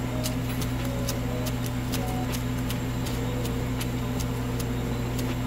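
Kitchen knife chopping spring onions on a wooden cutting board: evenly paced taps of the blade hitting the board, about three a second. A steady low hum runs underneath.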